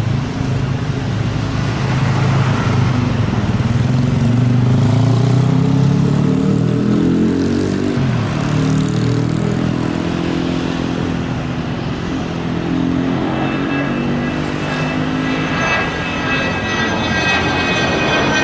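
Small business jet taking off at full power, the engine note rising in pitch as it accelerates and climbs out; in the last few seconds a high turbine whine joins in as it passes overhead.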